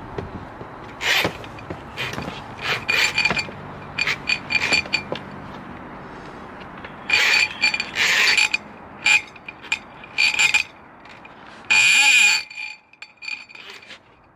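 Short squeaky, clinking mechanical noises coming on and off, the loudest about twelve seconds in, from a sewer inspection camera's cable being worked back out of a cast-iron sewer cleanout.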